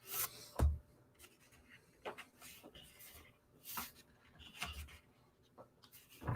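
Soft scraping and clicking of stiff trading cards sliding against each other as a pack is flipped through by hand, with two short low thumps.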